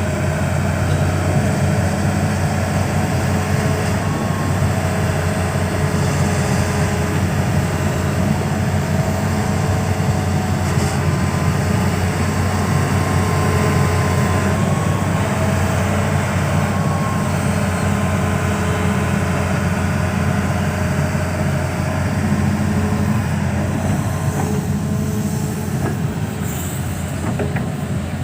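Hitachi 210 excavator's diesel engine running steadily, a deep, even rumble with a faint whine over it, easing off slightly near the end.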